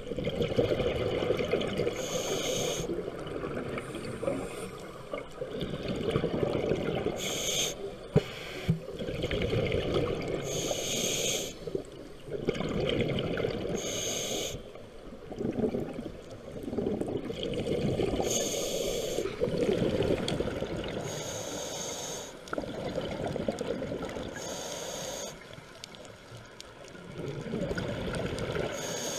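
Scuba regulator breathing underwater: a hiss on each inhalation, coming back about every three to four seconds, alternating with the low gurgling rumble of exhaled bubbles.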